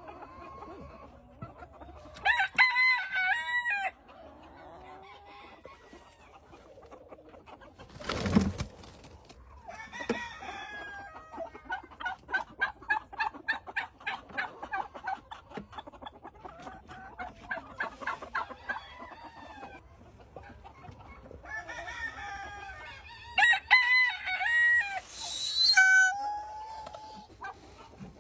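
Farmyard fowl calling: two loud drawn-out crowing calls, one near the start and one near the end, with a long run of rapid, repeated clucking calls in between. About eight seconds in there is one sudden, brief, loud rustling burst.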